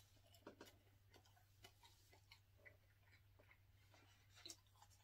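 Near silence: faint, scattered light clicks of eating, from a fork on a foam takeout plate and chewing, over a low steady hum.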